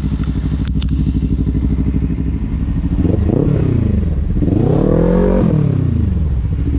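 Kawasaki Ninja 300 parallel-twin engine running steadily, then revved twice: a short rise and fall about three seconds in and a longer climb and drop near the end. A couple of sharp clicks come just under a second in.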